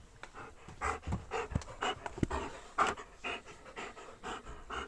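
A dog panting in quick, breathy puffs, about two a second, as it waits excitedly to be let out.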